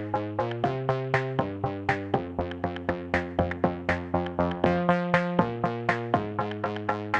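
Electronic background music: synthesizer chords over a steady, quick drum-machine beat.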